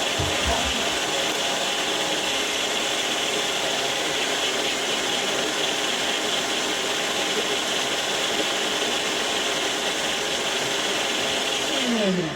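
Blender running steadily as it blends frozen mango chunks with honey and a little ice. Near the end it is switched off and its motor whine falls in pitch as it spins down.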